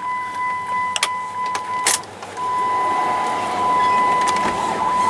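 Chrysler Sebring being started after sitting a couple of hours: two clicks, then from about two seconds in the engine turns over and catches, settling into a steady running sound that grows a low rumble. A steady high tone sounds under it.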